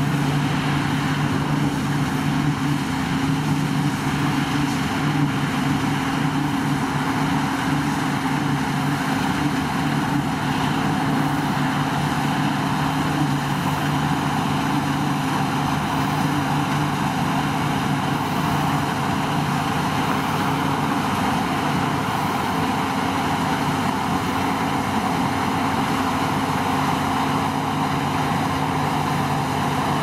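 New Holland CX8.70 combine harvester running steadily while cutting and threshing winter barley: a constant engine drone with two steady low hums under a broad rushing noise.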